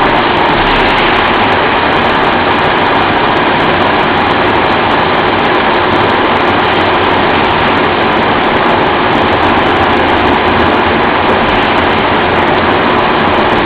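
Camshaft induction hardening machine running: a loud, steady, even machine noise with a faint steady tone through it.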